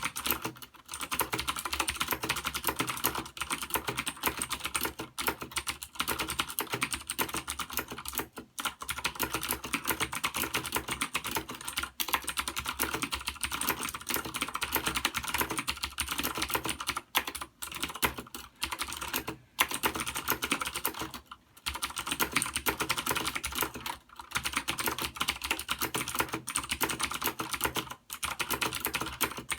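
Das Keyboard Ultimate mechanical keyboard with clicky Cherry MX Blue switches being typed on fast and continuously, a dense run of sharp clicks broken by short pauses every few seconds.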